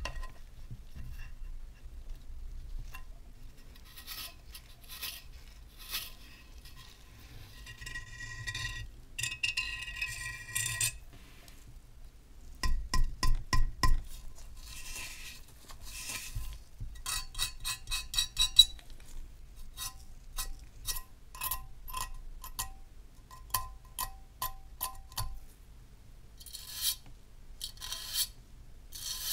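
A corroded brass kerosene lamp being handled: a string of light metallic clinks, taps and scrapes, some of them ringing briefly. Near the end comes a run of stiff-brush scrubbing strokes on the rusty body.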